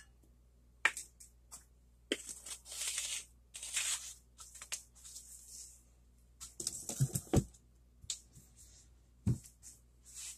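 Light kitchen handling sounds at a counter: scattered clicks and brief rustling as a plastic measuring cup is handled and set down, with a few dull knocks about seven and nine seconds in.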